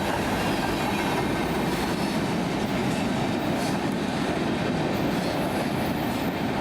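Freight cars of a CSX manifest train rolling past: a steady rumble and rattle of steel wheels on rail.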